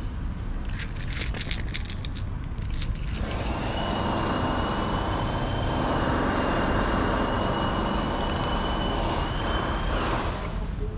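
A cat crunching dry kibble close up, a quick run of crisp clicks for the first few seconds. Then a steady rush of passing road traffic with a thin high whine over it takes over until near the end.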